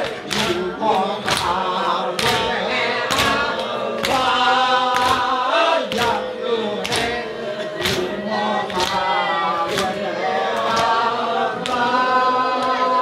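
A group of men singing a chant together, with steady rhythmic hand-clapping about twice a second.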